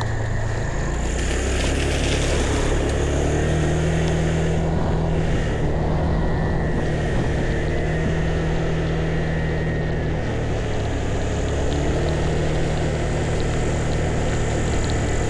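A vehicle engine running steadily, its low drone stepping up and down in pitch a few times as speed changes, over a steady hiss of road and wind noise.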